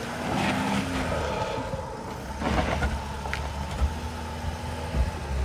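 4x4 Mercedes Sprinter van's engine running under load as it climbs a steep, rocky hill, with a few knocks and crunches from the tyres over rock.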